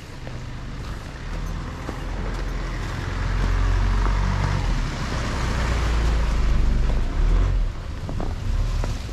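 A vehicle driving past on a snowy road. Its tyre noise swells and fades, with a low rumble that is loudest through the middle.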